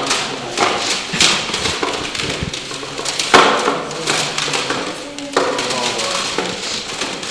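Knocks and clatter of album cases being handled and sorted through, with several sharp knocks along the way and faint voices underneath.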